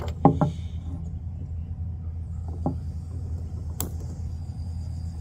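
Canister camp stove: a steel pot knocks down onto the burner, then the gas comes on with a steady hiss about two seconds in, and a single sharp igniter click comes near four seconds as the burner lights. A steady low rumble runs underneath throughout.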